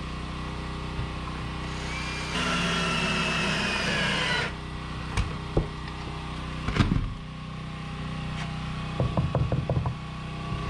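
Power drill running for about two seconds, its motor pitch shifting as it drives a fastener into a wooden 2x4 door framing member. Several sharp knocks on the wood follow, then a quick run of taps near the end, over a steady low hum.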